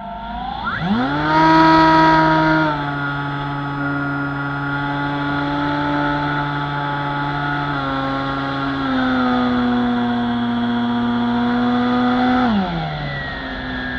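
Bixler 2 RC plane's electric motor and pusher propeller whining as heard from the onboard camera. The whine starts low, rises quickly about a second in as the throttle opens, and holds steady with a few small steps down. It drops in pitch near the end as the throttle is eased back.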